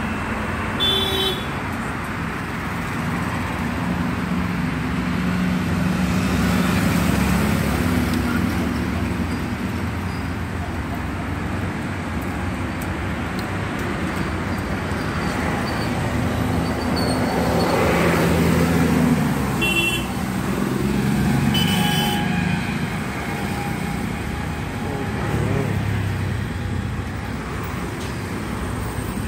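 Road traffic passing: engines of cars, motorcycles and auto-rickshaws swelling and fading as vehicles go by, with three short horn toots, one right at the start and two close together about two-thirds of the way through.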